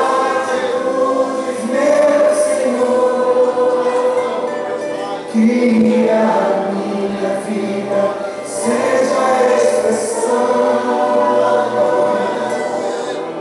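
Christian worship music with choir-like singing, the voices holding long notes over the instrumental backing.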